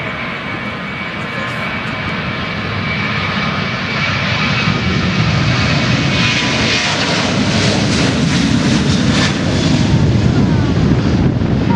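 Airliner engines growing steadily louder as the aircraft comes closer, with a steady high whine over the engine noise in the first half.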